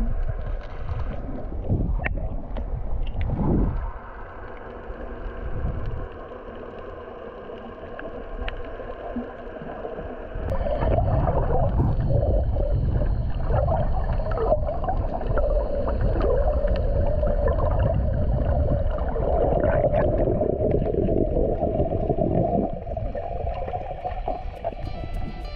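Muffled underwater sound picked up by an action camera in its waterproof housing: low water noise and gurgling as the swimmers move. About ten seconds in it grows louder with a wavering hum, dropping back again near the end.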